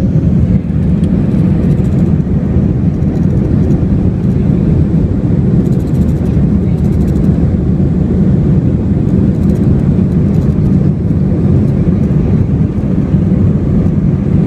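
Inside the cabin of an Airbus A321, a jet airliner's engines run at high power during takeoff. The result is a steady, loud, low noise that stays even throughout.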